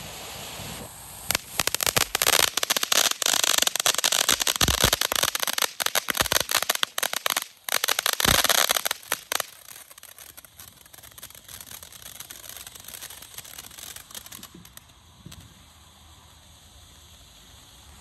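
Consumer fireworks crackling: a steady hiss gives way about a second in to a dense, rapid run of crackling pops that lasts several seconds, then thins out and fades by around fifteen seconds.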